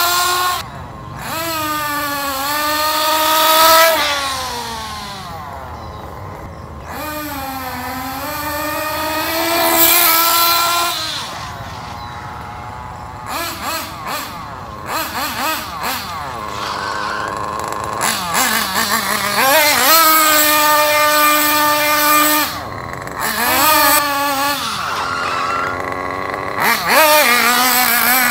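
Nitro RC car's small glow-fuel engine running hard on a trial run after needle tuning, revving up and dropping back over and over in a high buzzing whine. In places the throttle is blipped in short choppy bursts.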